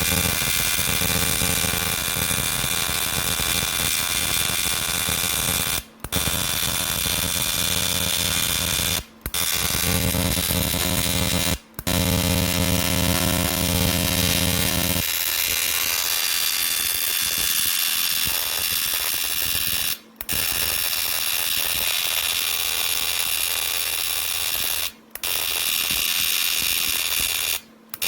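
Steady whine of a running machine with many steady tones. Its low hum drops away about halfway through, and the sound is broken several times by brief, sudden cut-outs.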